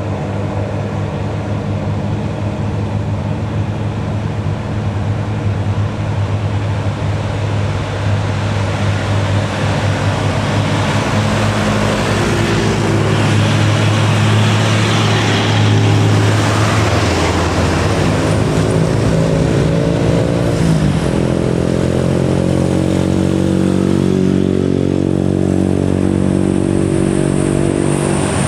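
Loaded heavy trucks' diesel engines labouring up a steep climb with a steady low drone. The noise swells louder from about 12 to 17 seconds in. Just after 20 seconds the engine pitch drops sharply, then slowly rises again.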